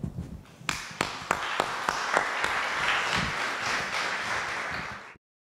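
Audience applause: a few separate claps about a second in, building into steady clapping that cuts off suddenly near the end.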